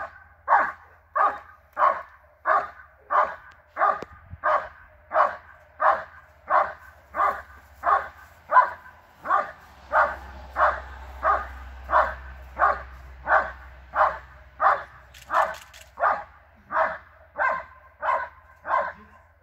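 German Shepherd barking at a protection helper in a steady, even rhythm, about three barks every two seconds, falling silent near the end. The dog is guarding the helper after releasing the sleeve on the "Aus" (out) command.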